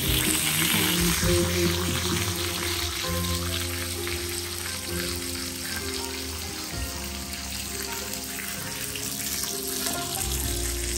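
Pork belly sizzling on a grill pan, a steady frying hiss, with background music playing underneath.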